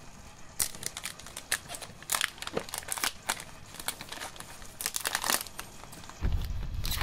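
Plastic trading-card booster-pack wrapper crinkling and tearing as it is opened, in sharp, irregular crackles. A low rumble sets in near the end.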